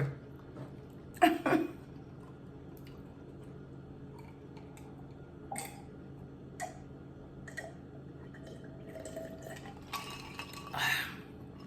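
Quiet mouth sounds of a person who has just finished eating: a short low throat sound about a second in, then a few faint clicks roughly a second apart, and a breathy sound near the end.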